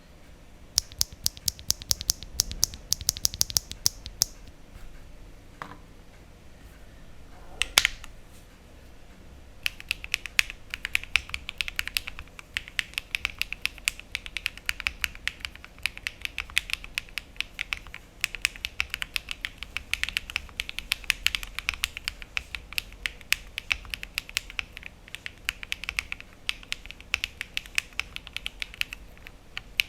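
Mechanical keyboard with lubed HMX Cheese linear switches (a JRIS75 build) being typed on as a sound test. A quick run of rapid keystrokes lasts about three seconds, then there is a pause with a single louder key press about eight seconds in. From about ten seconds in, steady continuous typing follows.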